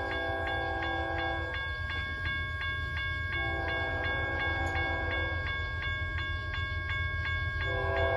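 A deep-tuned Nathan K5HL five-chime air horn on a BNSF ES44C4 diesel locomotive sounds in long blasts as the train approaches: one ends about a second and a half in, a second lasts about two seconds from about three and a half seconds in, and a third begins near the end. Under the horn a grade-crossing bell rings steadily at about four strokes a second, over a low rumble that grows louder toward the end.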